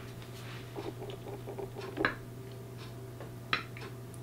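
A kitchen knife cutting a slice from a fondant-covered cake on a plate, with small scraping sounds and a few sharp clicks of the blade against the plate, the loudest about two seconds in and another about a second and a half later.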